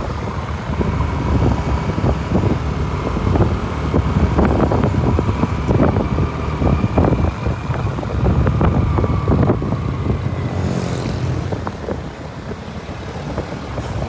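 Road vehicle noise with wind buffeting the microphone, and a short high hiss about eleven seconds in.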